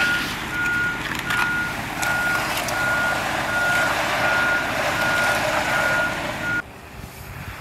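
A vehicle's backup alarm beeps a single steady tone at a regular pace, a little under two beeps a second, over steady engine noise. Both stop abruptly near the end.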